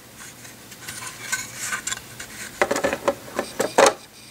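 Plastic LEGO roof plates clicking and clattering as they are set back onto the garage and pressed into place, with a run of louder snaps about two and a half seconds in.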